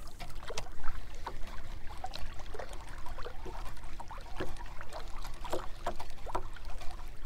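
Small waves lapping and slapping against a canoe's hull in irregular little splashes, over a low rumble of wind on the microphone.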